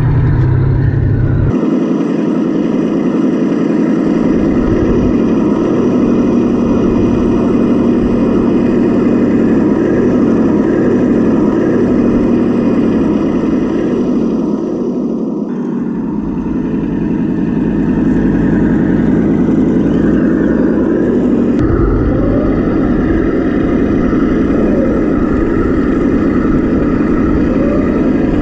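Radio-controlled Tamiya Leopard model tank driving over grass: a steady, loud engine-like drone with drive and track noise, whose character changes abruptly three times.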